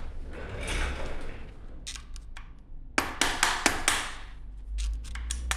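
Hand tools working on the scooter's axle nut and security washer: metal scraping, then a run of sharp clicks and clinks of metal on metal about three seconds in, with a few more clicks near the end.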